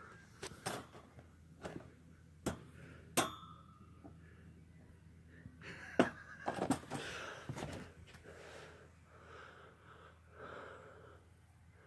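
Sharp clicks and knocks of a phone handled close to kittens, with a kitten's fur brushing against it, then a run of soft, breathy sounds near the end.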